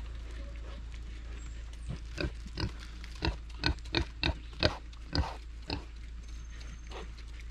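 Pigs eating feed scattered on a concrete floor: a run of short grunts and chomps, about two a second, starting about two seconds in and dying away near six seconds.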